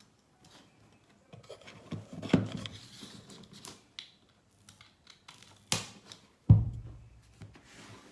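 Handling noises: scattered clicks, rustling and scraping, with a sharp click and then a heavier knock, the loudest sound, about six and a half seconds in.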